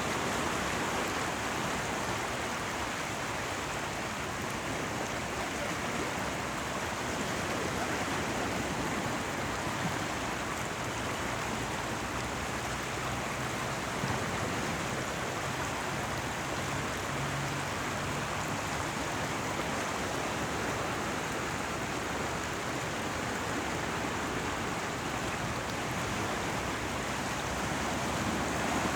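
Running water and waves making a steady, even rush of water noise. A faint low hum comes in partway through and fades out a few seconds later.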